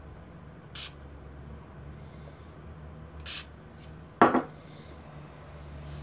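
Metal lathe chuck parts handled on a wooden workbench: two short, faint hissy rustles, then a sharp double clack about four seconds in as a metal part is set down.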